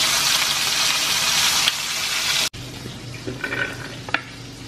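Chicken thighs frying in hot oil in a cast-iron skillet: a loud, steady sizzle that cuts off abruptly about two and a half seconds in. A quieter stretch follows, with a few faint knocks.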